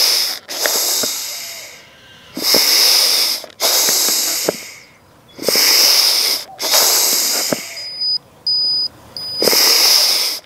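The bellows of an Apisolis vapor bee smoker pumped slowly, each stroke a loud breathy whoosh of air. About eight seconds in come three short high electronic beeps, the signal that the vaporizer is ready.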